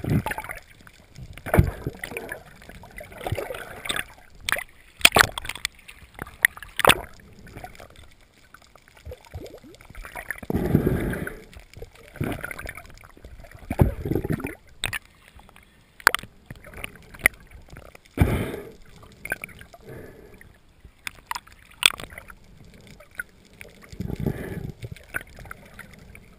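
Muffled underwater sound through a GoPro's waterproof housing as it moves with a swimming snorkeler: irregular swishes of water about a second long, with many sharp clicks and knocks in between.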